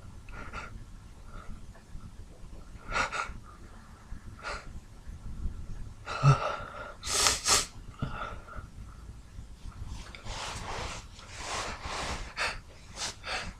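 A man in a sneeze fit: sharp gasping in-breaths as a sneeze builds, then a loud sneeze about six to seven seconds in. Near the end comes a run of breathy gasps as further sneezes stay stuck.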